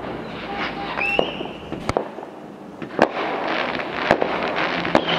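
Fireworks going off: sharp bangs about once a second, five in all, with a brief high whistle just after the first and crackling between the later ones.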